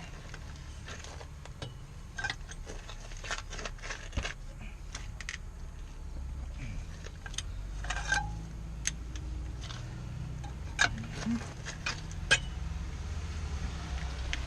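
Scattered sharp metallic clicks and clinks of hand tools and parts being handled while working on a car's rear wheel and brakes, over a steady low rumble.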